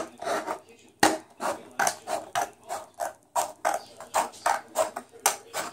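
Scissors cutting a sheet of paper: a steady run of crisp snips, about two or three a second, with the paper rustling as it is fed through the blades.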